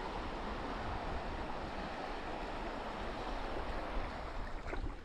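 Fast-flowing river water rushing steadily around the canoe as it runs through the canyon, with a low rumble underneath and a few light knocks near the end.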